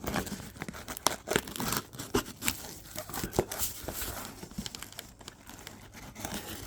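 Packing material in a shipping box being handled and pulled out, crinkling and tearing, with irregular sharp crackles, busiest in the first few seconds.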